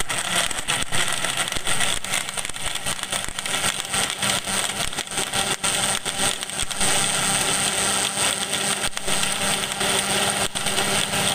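Electric blender motor running at full speed, crushing ice cubes and whole plums in a glass jug. There is dense rattling for the first half, then the sound turns to a smoother, steadier whir about seven seconds in as the mix becomes a pulp.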